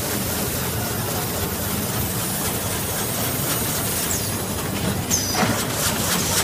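High-speed plastic bag making machine running: a steady mechanical clatter and hiss, with a few short high squeaks and a run of sharp clicks in the last second or so.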